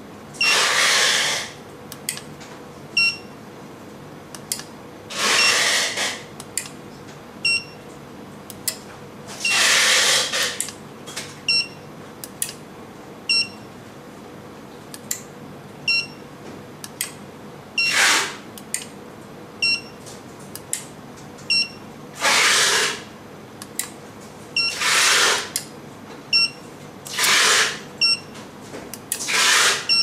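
Four-channel RF remote control kit being switched: sharp clicks of buttons and relays, with short high beeps repeating about every second and a half. Louder bursts of rustling noise, each about half a second to a second long, come eight times.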